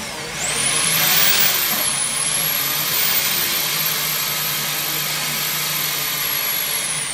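High-pressure water drain jetter running, a steady hum and hiss under a very high motor whine that rises and falls, as its hose is fed into a clogged floor drain. The hum cuts off near the end and the whine falls away.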